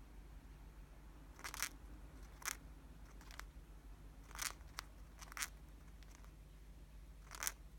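A cockatiel grinding its beak: short, dry rasping strokes, about eight of them, coming at uneven intervals.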